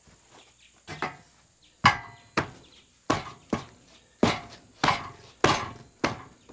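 A series of sharp knocks at a steady pace of about two a second, each ringing briefly, like hard objects being struck or stepped on.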